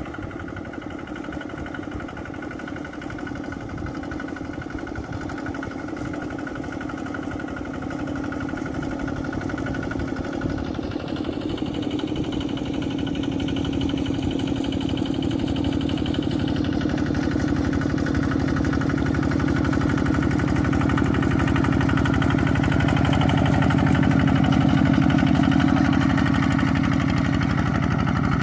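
Engine of a 'cào cào' paddy-field land-leveling machine running steadily as it drags its leveling board through flooded mud. It grows steadily louder as the machine comes closer.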